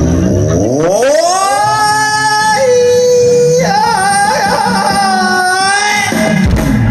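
A single high voice giving a long, drawn-out ceremonial 'โห่' cry in likay style: it slides up in pitch, holds a steady note, then wavers and bends before stopping about six seconds in. The likay band's drums and music come back in near the end.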